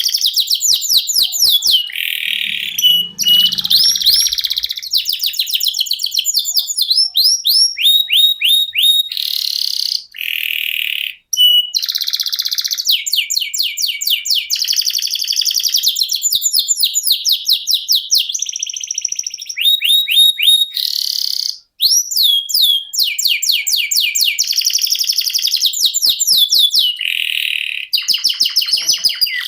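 Domestic canary singing a long, nearly unbroken song of rapid trills and rolls, fast runs of repeated notes and quick falling sweeps, changing phrase every second or two. There are two short breaks, one about a third of the way through and one about two thirds through.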